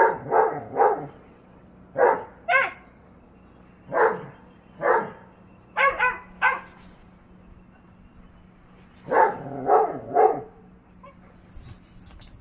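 Vizsla puppy play-barking at an older dog: short, sharp barks in quick bursts of two or three, about a dozen in all, with pauses between the bursts.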